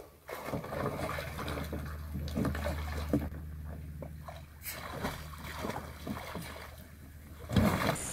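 Water splashing and sloshing against a plastic kayak hull as a person in the water struggles to climb onto it from the side, with irregular knocks and bumps against the hull over a steady low rumble.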